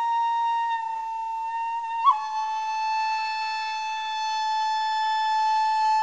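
Background music: a wind instrument holds one long high note. About two seconds in there is a brief flick, and the note settles slightly lower and is held on.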